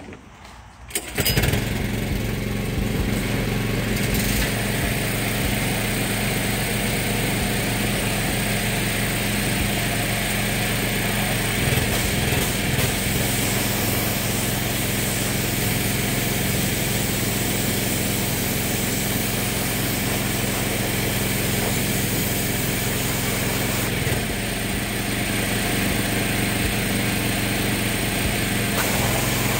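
Pressure washer switched on about a second in and then running steadily: a low motor hum under the hiss of the water jet spraying across an engine bay.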